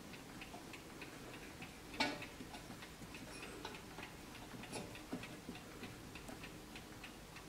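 Brass mantel clock ticking faintly and evenly, with one louder clink about two seconds in as the brass ring handle of the shell-case vase is lifted and handled.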